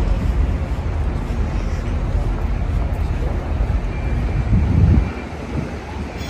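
Wind buffeting the microphone outdoors, a heavy fluctuating low rumble over faint city background noise, with a stronger gust about four and a half seconds in.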